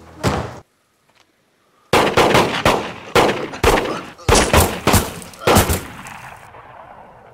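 Film gunfire: a rapid string of about a dozen gunshots that starts about two seconds in and runs for some four seconds, with bullets kicking up sand around a running man. The shots die away into a fading echo.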